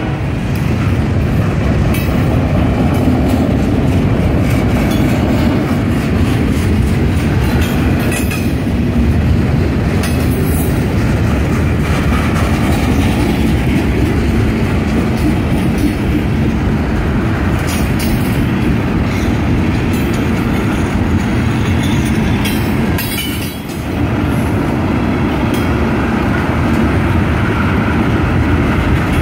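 Freight cars of a long mixed freight train rolling past at close range: a steady, loud rumble of steel wheels on rail, with scattered clicks and clacks as the wheel sets pass over the rail joints and crossing.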